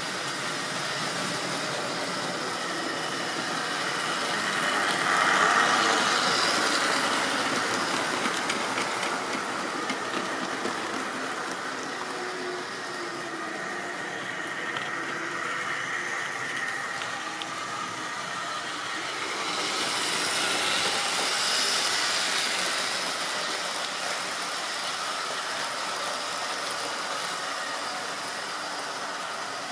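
Model railway train running on its track: a steady hum and rattle of motor and wheels that swells louder as it passes close, about five seconds in and again about twenty seconds in.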